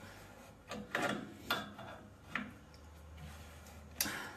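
A few short clicks and scrapes, about five spread over four seconds, from a gloved hand working at a copper radiator pipe joint.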